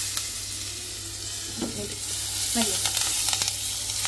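Fresh curry leaves sizzling hard in hot oil and masala powders in a frying pan, a steady loud hiss with a few light taps of stirring.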